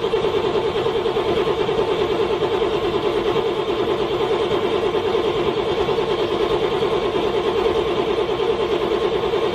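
Car engine cranking on its starter in a fast, even pulsing rhythm without catching: a cold engine struggling to start in freezing weather.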